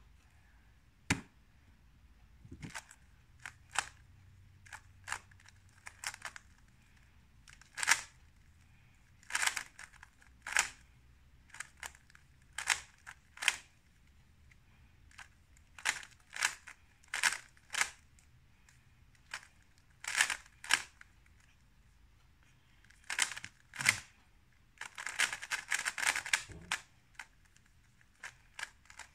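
Layers of a 3x3 speedcube being turned quickly by hand: sharp plastic clacks in irregular flurries, with a dense run of rapid turns about 25 seconds in.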